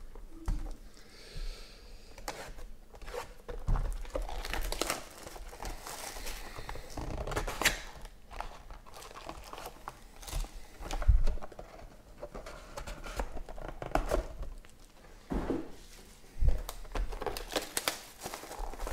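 Plastic wrapping crinkling and tearing as sealed trading-card boxes are unwrapped and opened, with cardboard and packs rustling in the hands and a few dull knocks of boxes being set down.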